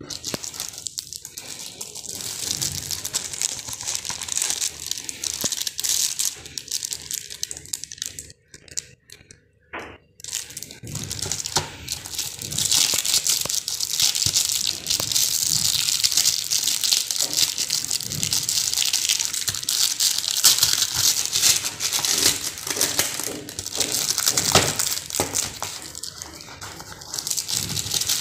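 Plastic wrapping on a mouse and rat glue board package crinkling and crackling as hands handle it, with brief pauses about eight to ten seconds in.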